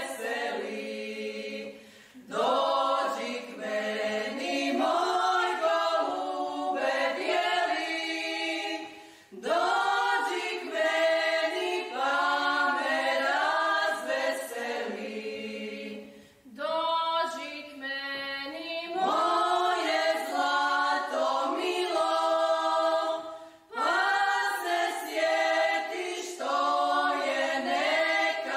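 A choir singing unaccompanied, in long phrases of about seven seconds broken by short pauses.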